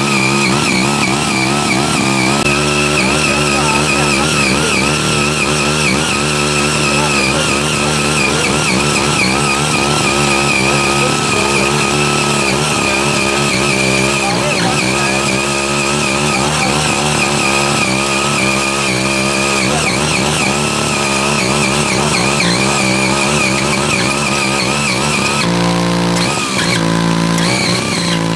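Small engine of a CY80 mini rotary tiller running steadily under load as its six rotary tines churn through weedy soil, its note wavering slightly. The engine note changes briefly near the end.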